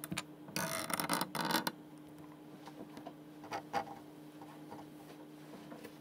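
Two short squeaky, scraping noises close together about half a second in, then a few faint clicks, over a steady low hum.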